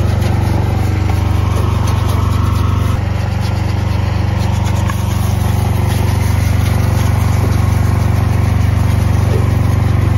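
An engine running steadily at a constant speed, with an even, deep hum that does not change.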